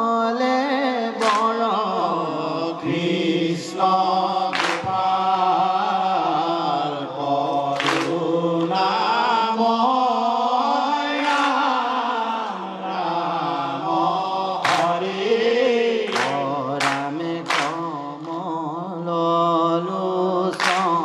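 Assamese Naam Prasanga devotional chanting: a group of men sing a slow, sustained melody together behind a lead voice, with sharp hand claps now and then.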